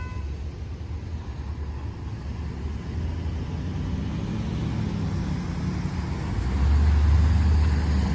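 Pickup truck towing a boat trailer, its engine getting louder as it approaches the railroad crossing and coming in close about six and a half seconds in, over a low steady rumble of traffic.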